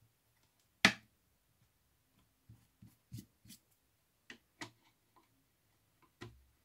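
Sharp clicks and light taps of a screwdriver and metal screws as the woofer's mounting screws are driven into the baffle of a JBL 4406 monitor cabinet. One loud click about a second in, then a scatter of smaller clicks.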